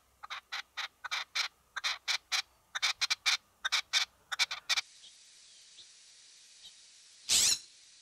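Red-legged partridge calling: a rhythmic run of short, harsh notes, about four a second, that stops after almost five seconds. Then, over a faint outdoor hiss, a scrub-jay gives one loud, harsh call near the end.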